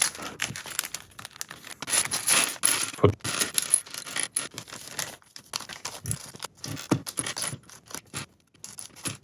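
Plastic bags of toy building-block pieces being torn open and handled: crinkling plastic with irregular light clicks of small plastic bricks knocking together.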